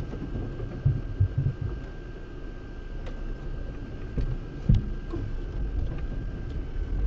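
Lada Niva Bronto driving slowly over a rough dirt track, heard inside the cabin: a steady low engine and road rumble with several thumps from bumps, a cluster about a second in and the loudest near the five-second mark. A faint steady high tone runs under it.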